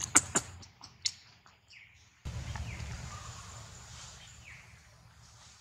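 Outdoor ambience: a few sharp clicks in the first second, then a low rumble that starts suddenly and slowly fades, with faint short bird chirps above it.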